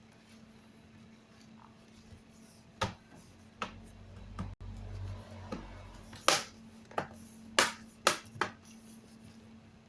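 Plastic bottom cover of a laptop being pressed back onto the chassis, its clips snapping into place: a series of about eight sharp clicks, most of them in the second half.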